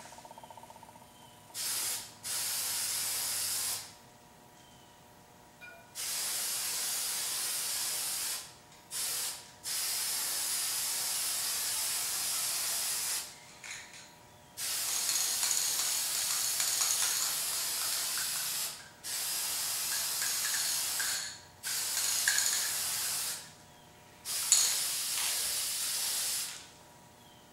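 Aerosol spray-paint can spraying in a series of hissing bursts, each one to four seconds long, with short pauses between them.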